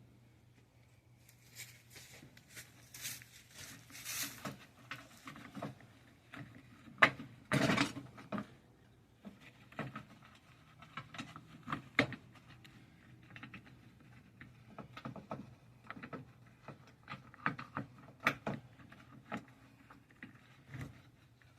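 Hands working on a lawnmower, removing and fitting parts: scattered clicks and knocks with stretches of rustling and scraping, the loudest a brief noisy burst about seven seconds in.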